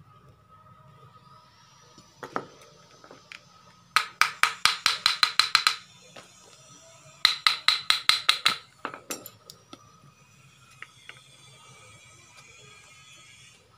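Two quick runs of sharp, ringing metal-on-metal taps, about seven a second. The first run lasts nearly two seconds, the second starts about three seconds later and lasts just over a second, with a few single knocks around them. They come from the metal parts of a car air-conditioning compressor being worked on as it is taken apart.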